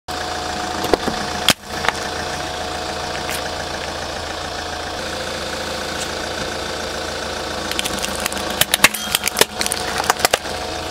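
A car engine idles steadily while the car creeps over objects under its tyre. There are a few sharp cracks about one and two seconds in, and a rapid run of cracking and popping from about eight seconds in as something is crushed.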